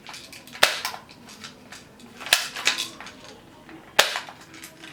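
Small toy gun being fired: three sharp snaps about a second and a half apart, each followed by a few lighter clicks.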